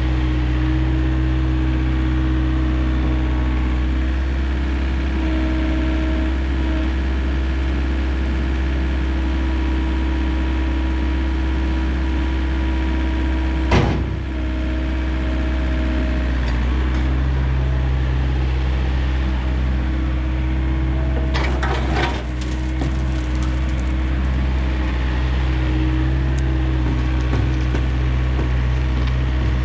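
A heavy diesel engine runs steadily, with one sharp clunk about halfway through and a short burst of clattering knocks about two-thirds of the way in.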